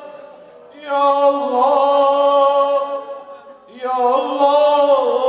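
A man chanting an unaccompanied devotional recitation in long held, melismatic notes. The chant comes in two phrases, each starting after a short pause for breath: one about a second in and one just before the four-second mark.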